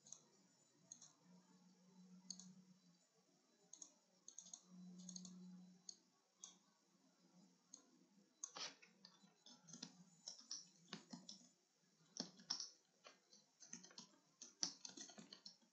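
Faint, scattered clicks of a computer mouse and keys, then from about eight seconds in a quicker run of computer keyboard typing. Two faint low hums sound in the first half.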